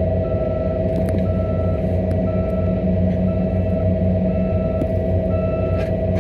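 Heavy diesel earthmoving machinery running steadily, with a constant whine over the engine rumble. A back-up alarm beeps about once a second, and a second, higher-pitched beep joins in twice in the last couple of seconds.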